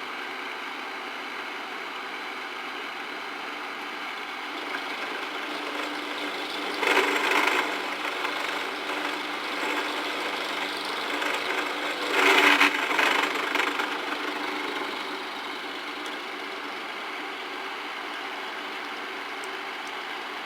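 Homemade mill-drill driven by a treadmill motor, running steadily. About midway it gets louder, with two loud harsh bursts several seconds apart as the end mill cuts into 3/4-inch bar stock.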